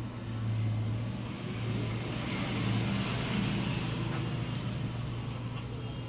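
Refrigeration compressor of a glass-door display cooler running with a steady low hum while the cooler's fan stays off, with a soft hiss of movement swelling in the middle.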